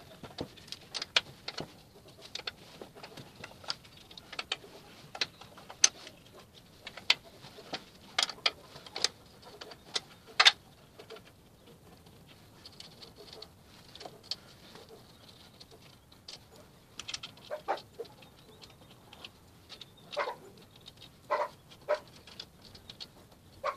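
Irregular sharp metallic clicks and taps as the nuts of a beadlock ring are undone one by one on an all-terrain vehicle wheel. The loudest click comes about ten seconds in, and a few more cluster near the end.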